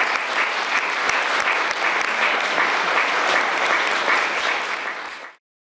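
Audience applauding at the end of a song, a dense steady clapping that cuts off suddenly near the end.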